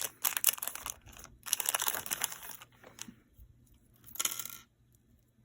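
Small plastic packaging bag crinkling as it is opened and handled: a run of crackly rustles for the first three seconds, then one short rustle about four seconds in.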